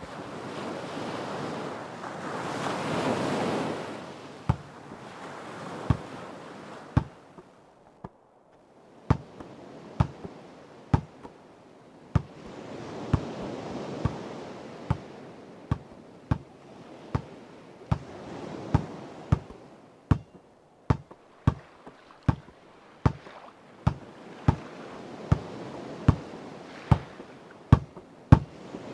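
Ocean waves washing onto a shore in slow swells, with a basketball being dribbled. The bounces start about four seconds in, come about once a second, and quicken in the second half.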